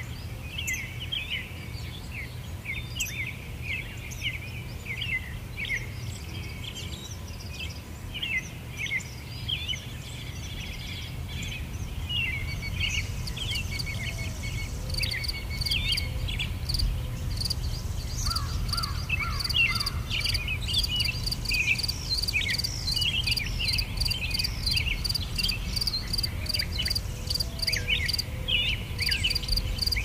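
Nature ambience of many small birds chirping with short, quick calls over a low rumbling background. From about halfway an insect, like a cricket, joins in with an even, pulsing high chirp.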